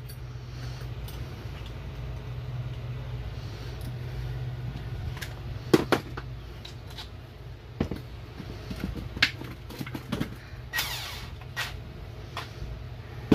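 Metal clinks and knocks as a steel gear puller is fitted over the transmission's gears, with a short burst from a cordless drill turning the puller screw near the end. A steady low hum runs underneath.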